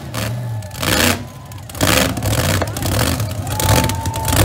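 Two mega trucks' engines running at high revs as they pull against each other on a chain, wheels spinning in the dirt. The noise drops away for about two seconds after the start, with a brief surge about a second in, then comes back loud and steady.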